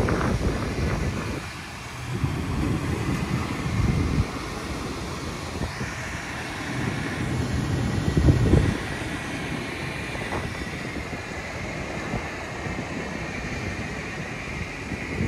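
Steady whine and hum of a parked Boeing 737-800 airliner. Wind buffets the microphone in several low gusts, the strongest a little past the middle.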